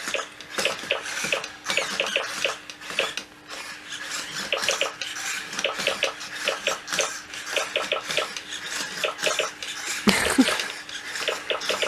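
Sony aibo ERS-311 Latte robot dog walking: a fast, irregular run of small clicks and taps from its leg joints and plastic feet over a faint steady hum, with a louder knock near the end.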